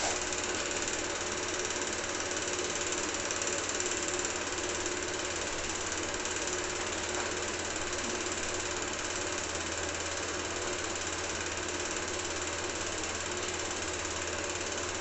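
Cine film projector running with a steady mechanical sound.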